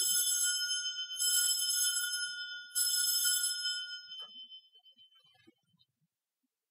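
Altar bells rung three times at the elevation of the chalice after the consecration. Each ring is a short, shaken jingle of several high tones, about a second and a half apart, and the last one rings on and dies away.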